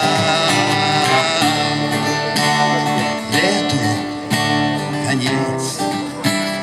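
Acoustic guitar strumming chords in an instrumental passage between sung lines of a song.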